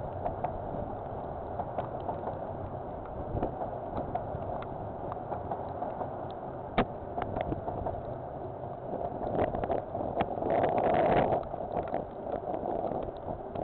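A container freight train's wagons rolling past, heard as a steady rushing rumble. Scattered sharp ticks of rain and wind hitting the security camera's microphone sit over it, with a louder gust about ten to eleven seconds in.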